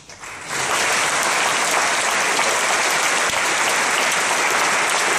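A large audience breaking into applause, swelling within the first second to steady, loud clapping.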